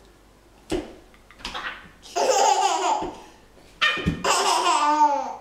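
Toddler laughing and squealing in two outbursts, a short one about two seconds in and a longer one near the end whose pitch falls away.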